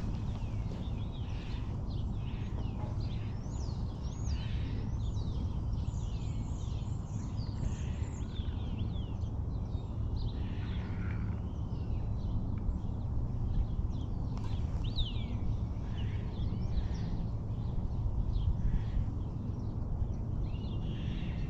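Several birds chirping and calling: a busy run of short, quick rising and falling calls, over a steady low rumble.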